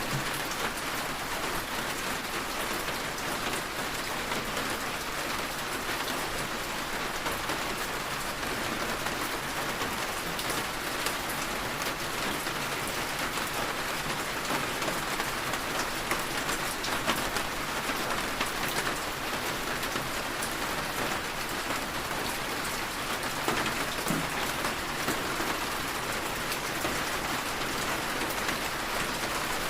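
Steady rain falling, tapping on a window, with many small drop ticks in an even hiss.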